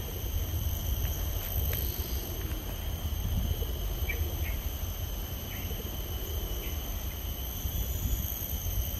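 Steady, high-pitched drone of insects holding several tones at once, with a few short chirps scattered through it and a constant low rumble underneath.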